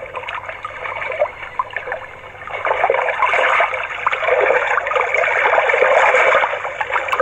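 Splashing, trickling water-like noise played through the small speaker of a motorcycle alarm MP3 player in music mode, getting louder about two and a half seconds in.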